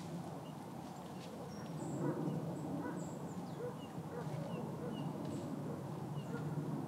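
A flock of waterfowl, such as geese, calling in a continuous babble on a lake. Small songbirds give short, high chirps scattered throughout.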